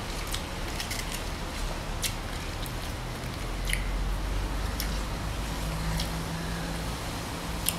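Mustard-green leaves and crisp bánh xèo crepe handled and wrapped by hand: leaves rustling, with scattered sharp crackles.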